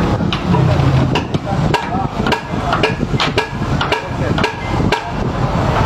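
Irregular sharp clicks and knocks of hand work on a truck's gearbox underside, over a steady low hum.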